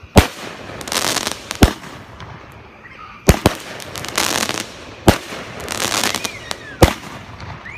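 Fireworks going off: five sharp bangs about every one and a half to two seconds, with crackling after several of them.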